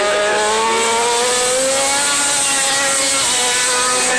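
A pack of 800 cc four-stroke MotoGP racing motorcycles at high revs as they race past. The engine note climbs slowly over the first couple of seconds, then eases slightly downward.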